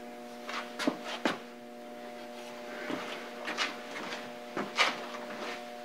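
Light clicks, knocks and rustles of parts and containers being handled on a workbench, with a few sharper knocks about a second in and near the end, over a steady electrical hum.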